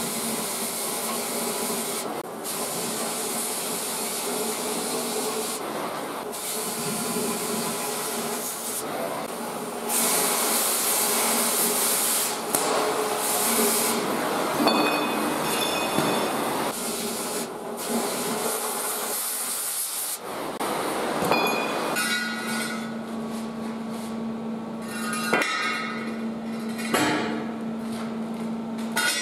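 MIG welding on a steel boat stand: spells of crackling, hissing arc that start and stop abruptly, with short pauses between beads. From about two-thirds of the way through, the arc stops, leaving a steady hum and a few sharp metallic knocks.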